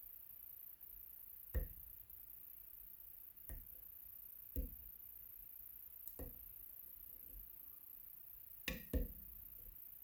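Scattered soft clicks and knocks from picking a dimple lock with a pick and tension tool, about six in all, the last two close together near the end.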